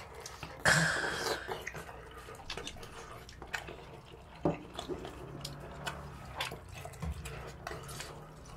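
Close-miked eating of fish cake in soup: a loud wet mouthful about a second in, then quieter chewing with scattered small mouth and utensil clicks.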